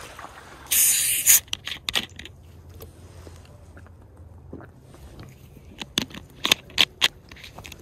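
Dry bank grass brushing and scraping against the camera as it is moved, with a loud scraping hiss about a second in, then scattered clicks and taps from handling, a cluster of them near the end.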